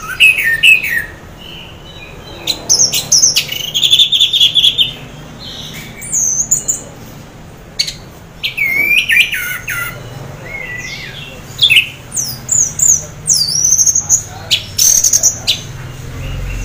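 Orange-headed thrush singing in bursts of varied whistled phrases, with sliding notes and quick trilled runs and short pauses between. It is the song of a bird half in breeding condition, the kind used to get other orange-headed thrushes to sing.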